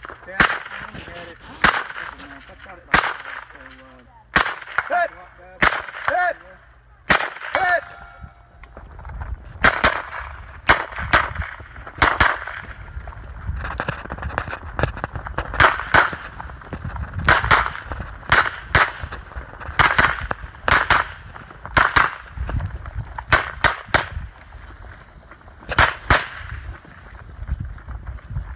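Rifle shots from an HK MR556 semi-automatic 5.56 mm rifle, several dozen of them fired at an irregular pace, singly and in quick runs.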